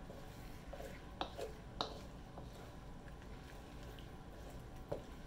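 Wooden spatula stirring chicken and broccoli in a thick, creamy sauce in a wok: wet squishing with a few soft clicks and scrapes of wood on the pan, over a faint steady low hum.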